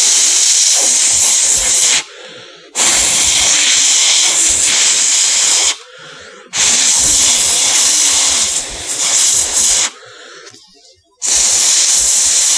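Hard, long breaths blown into the scroll wheel of a Bloody V8M gaming mouse: four loud blows of about three seconds each with short pauses between. The blowing is meant to cure a scroll wheel that jumps when scrolled.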